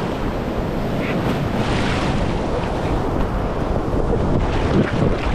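Ocean surf and foaming whitewater washing around a camera held at the water's surface, with heavy buffeting noise on the microphone.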